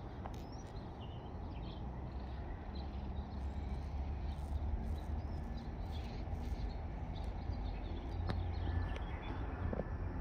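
Outdoor ambience: scattered faint bird chirps over a steady low rumble.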